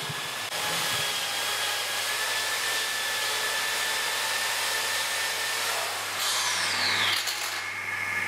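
Handheld angle grinder running steadily against a steel plate, cleaning it back to bare metal for welding. About six seconds in it winds down with a falling whine. A steady hiss runs underneath.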